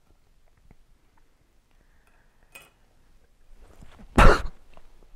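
A few faint clinks of a fork and the metal can lid against the opened tin, then about four seconds in one loud, short gagging cough: a retch at the foul smell of the canned snails.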